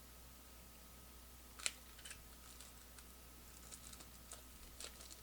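Faint clicks and taps of trading cards being handled, with one sharper click about a second and a half in and a run of small clicks near the end.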